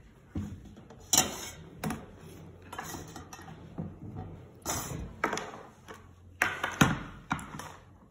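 Plastic toys knocking and clattering on a wooden tabletop: about a dozen irregular sharp clacks as a toddler bangs and handles them.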